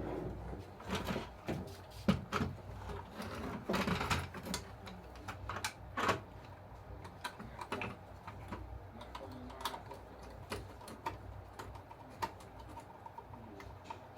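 Irregular clicking and light tapping of small parts being handled and fitted on an RC bulldozer model during repair.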